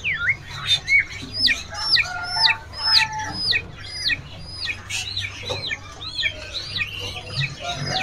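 Caged songbird singing a long run of clear whistled notes, each hooking quickly up and then down, about two a second, with higher and lower notes mixed in.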